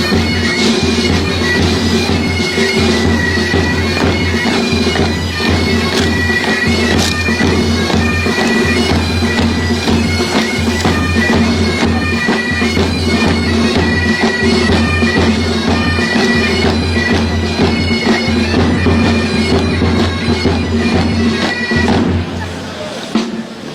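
Bagpipes playing a tune, the chanter melody running over steady, unbroken drones; the piping stops about a second before the end.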